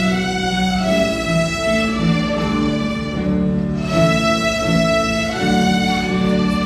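Children's violin ensemble playing together with piano accompaniment, a melody of held notes with a brief break about halfway through.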